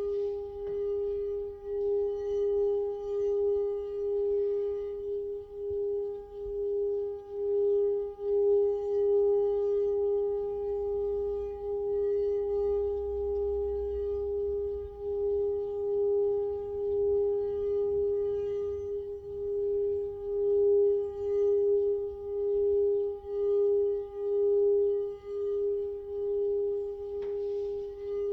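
Singing bowl played around its rim, holding one steady tone with overtones and swelling and fading regularly about once a second. A faint click near the end.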